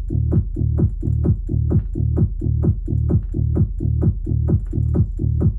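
Electronic psytrance-style music with a fast, steady beat: a heavy pulsing bass and a quick repeating synth note that falls in pitch about four times a second.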